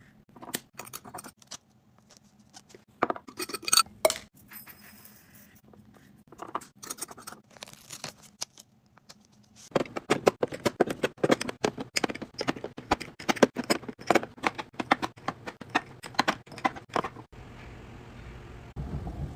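Glass spice jars with metal screw lids being handled: scattered sharp clinks and taps at first, then from about halfway a dense run of clicks and clinks as the jars are set into a ridged plastic drawer insert.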